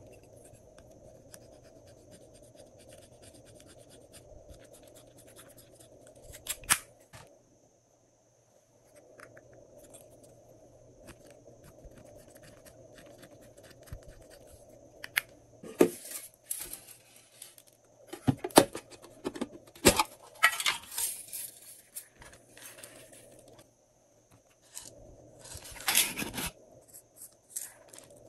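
Scissors snipping and plastic piping bags being handled with slime: scattered sharp snips, crinkles and scrapes in short bursts, busiest in the second half, over a faint steady hum.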